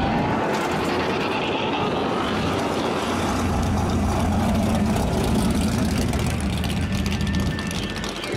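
Plymouth Barracuda muscle car's engine rumbling steadily at low revs as the car rolls slowly past.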